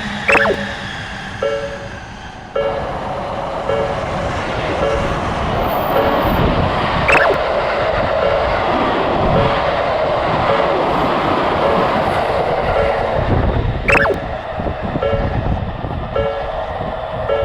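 Japanese level-crossing warning bell dinging steadily in a repeating two-note pattern while a Seibu Railway train runs through the crossing; the rush of its wheels and motors swells from about four seconds in and fades again toward the end. Three brief sharp high sounds stand out, one near the start, one in the middle and one near the end.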